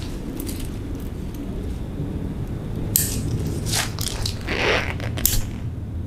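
Umbrella being pushed open by hand. Its canopy rustles and its frame gives a few sharp clicks, starting about halfway in.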